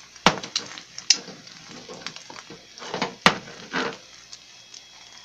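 Egg frying on a flat griddle with a faint sizzle, broken by several sharp clicks and knocks, the loudest about a third of a second in, at about a second, and just after three seconds.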